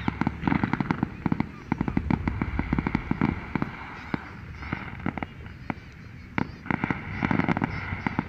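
Fireworks crackling and popping in rapid clusters of sharp reports, heaviest in the first three seconds and again in the last two, with a sparser stretch in between.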